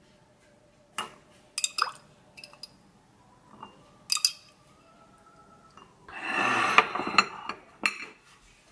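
A glass jar and ceramic dishes clinking and knocking on a stone countertop as sliced pickled olives are tipped from the jar into a small ceramic bowl: a few sharp clinks, then a louder scraping rattle with knocks about six seconds in as the dishes are moved.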